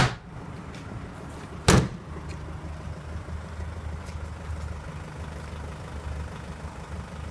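Two sharp slams at the back of the pickup, one at the start and one nearly two seconds in, then the 2004 Nissan Navara D22's 2.5-litre diesel idling with a steady low rumble, running smoothly on a cold day.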